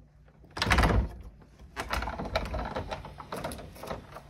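Wooden-framed sliding door being slid open: a loud scrape and knock about half a second in, then irregular rattling and knocking of the frame in its track.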